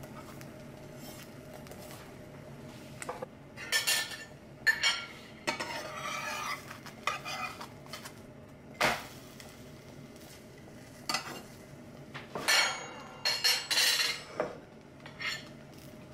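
A metal slotted spatula scrapes and clacks against a ceramic nonstick frying pan as a pancake is loosened and flipped, and the pan knocks on the gas stove grate. The sounds come in irregular clusters starting about three seconds in, with the loudest clatter near the end.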